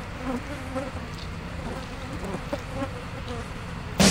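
Flies buzzing, a wavering buzz that rises and falls in pitch. Near the end a sudden loud drum hit comes in.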